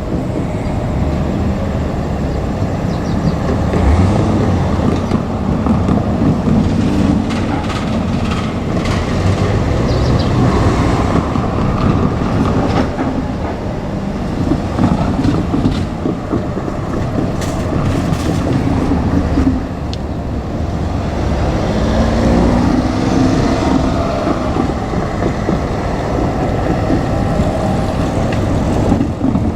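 JR Kyushu 817 series electric train running on the rails: a steady rumble, with wheels clicking over rail joints most densely in the middle stretch.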